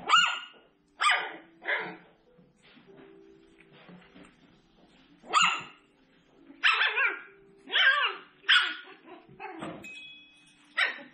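Seven-week-old poodle puppies yipping and barking in short, high-pitched yaps, about ten in all: a few near the start, a quiet gap of a few seconds, then a quick run of yips through the second half.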